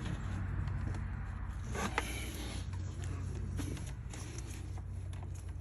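Hand work on engine parts: light clicks and a short scrape about two seconds in as a pipe and its clamps are fitted, over a low steady hum.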